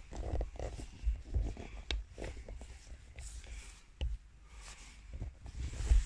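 Handling noise of a camera being picked up and moved: irregular rustles, scrapes and low thumps, the loudest thump near the end.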